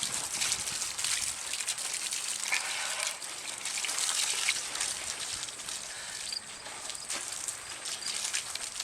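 Garden hose spraying water onto a person, a steady uneven hiss of splashing and splattering as the slime is rinsed off.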